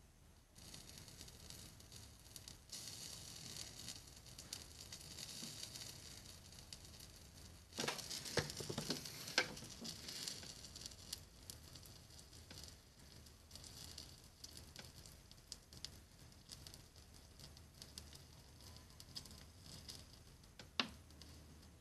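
Faint sizzling and crackling of solder and its flux melting under a soldering iron tip. The crackling grows louder and busier with a run of ticks about eight seconds in, and there is one sharp tick near the end.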